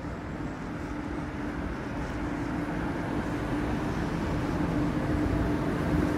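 Steady mechanical hum and low rumble of a running escalator, growing gradually louder as it is approached.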